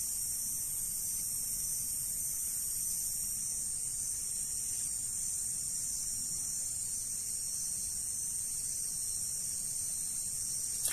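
Steady, high-pitched chorus of night insects, shrilling without pause.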